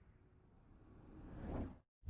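Near silence, then a short rising whoosh sound effect that swells about a second in and cuts off abruptly just before a louder hit.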